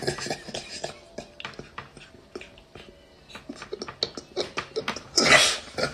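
A man laughing hard: near-silent, wheezing laughter with short catches of breath and little clicks, breaking into a loud breathy laugh about five seconds in.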